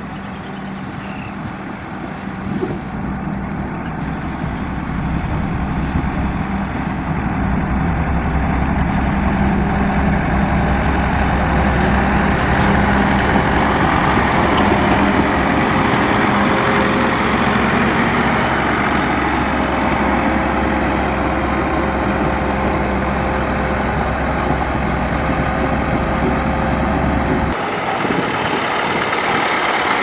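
Motor grader's heavy diesel engine running steadily while grading soil, growing louder over the first several seconds. Near the end the deep low rumble cuts out suddenly and a higher engine sound carries on.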